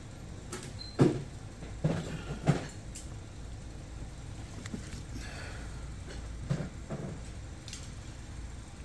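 Scattered short knocks and clunks, about six over several seconds, as a cap with a greased rubber seal is worked by hand into place at the back of an engine, over a steady low hum.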